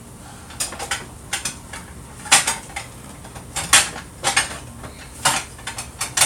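Plates and serving utensils clinking and knocking together as food is dished up: a string of sharp clatters, the loudest a little over two seconds in and again near four seconds.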